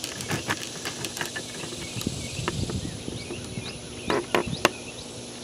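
Outdoor ambience with a steady high insect buzz and scattered light clicks and knocks of handling, most of them about four seconds in.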